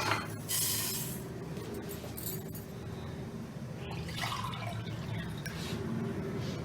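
Water poured from a cup into a pot of crushed ginger and sugar, a short pour about half a second in, followed by a few brief drips and clinks over a steady low hum.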